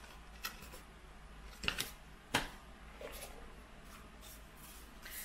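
Oracle cards and their fold-out guide card being handled: several light clicks and rustles, the sharpest about two and a half seconds in, over a faint low hum.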